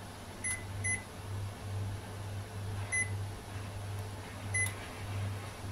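Short electronic beeps from a convection oven's control panel as its buttons are pressed to set a 20-minute bake, four beeps spread unevenly over a few seconds, with a steady low hum underneath.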